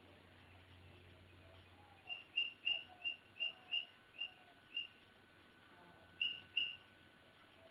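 Marker squeaking on a whiteboard while writing: a run of short, high squeaks, about nine in quick succession, then two more a second later.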